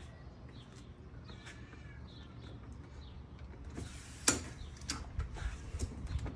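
Quiet low hum, then from about four seconds in a run of sharp clicks and knocks, one much louder than the rest, from a folding dolly cart being handled.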